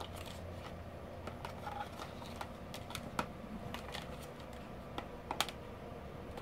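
Irregular light clicks and taps of plastic catheter-kit pieces and tubing being handled in a plastic kit tray with sterile-gloved hands, with a sharper cluster of clicks about five seconds in.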